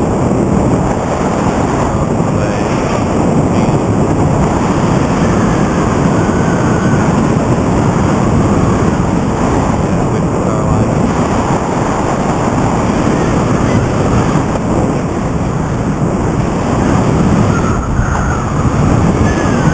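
Loud, steady rushing noise of a powered paraglider in flight, heard from the pilot's harness, with wind buffeting the camera microphone.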